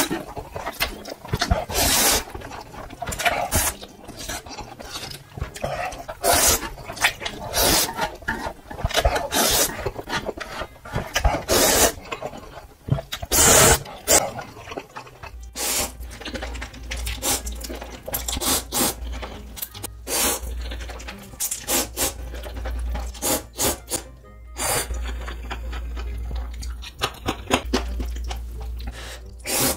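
Close-miked slurping of spicy ramen noodles: a long run of loud, short sucking slurps, one after another.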